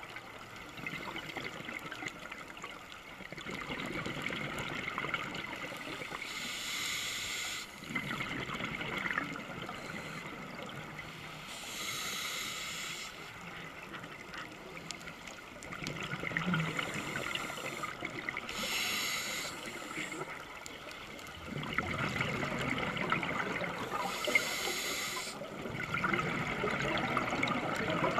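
Scuba diver breathing through a regulator underwater: four short hisses on the inhale, about six seconds apart, each followed by the gurgling rush of exhaled bubbles.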